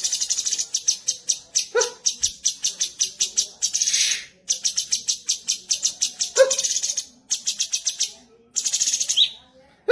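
Cucak cungkok song: fast, high-pitched chattering trills in bouts of a second or two, about eight to ten notes a second, broken by a few short, lower, harsh notes.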